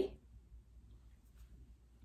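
Near silence: quiet room tone with a faint low hum, just after a woman's voice trails off.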